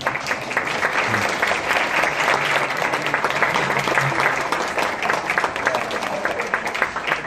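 Audience applauding, a dense patter of many hands clapping that starts suddenly and slowly dies down toward the end.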